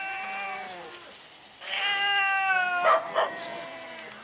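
Domestic cat yowling: two long drawn-out meows, the second louder, each sliding down in pitch.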